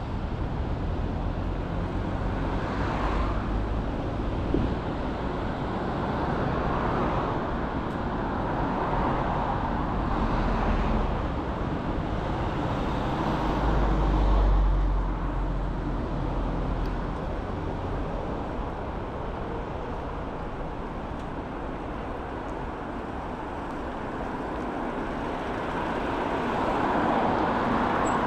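Street traffic: a steady hum of road noise with several vehicles passing one after another, each swelling and fading over a few seconds. The loudest pass is about halfway through, with a deep rumble.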